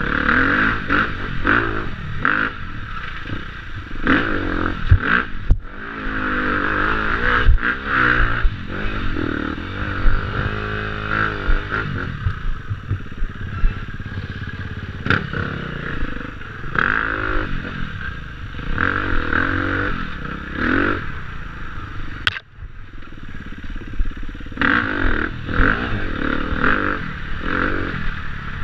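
A 2014 KTM 250 EXC-F's single-cylinder four-stroke engine revving up and down as the bike is ridden hard over rough ground. Knocks and clatter come from the bike bouncing over bumps.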